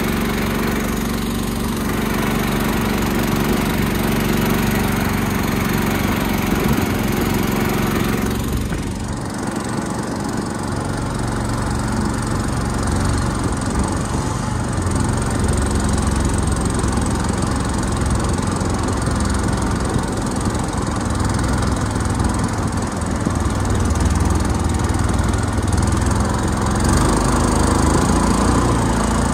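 Small Predator gas engine driving the boat's long-shaft motor, running steadily under way, with a sudden shift in its sound about nine seconds in.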